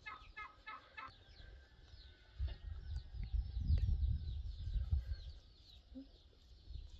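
A chicken clucking in a quick series for about the first second, then many short, high, falling bird chirps, over a low rumble that is loudest in the middle.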